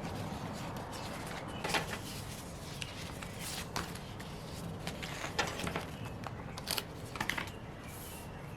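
Paper and stickers being handled while decorating a planner page: a handful of short rustles and crackles, spaced a second or two apart, over a low steady hum.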